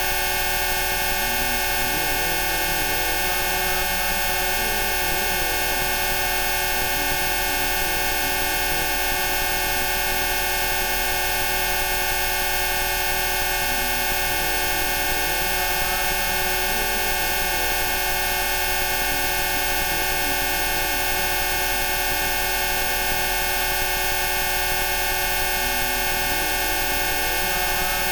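A dense blend of many steady electronic sine tones at different pitches sounding together without change, a Rife frequency protocol, with faint slowly wandering tones drifting underneath.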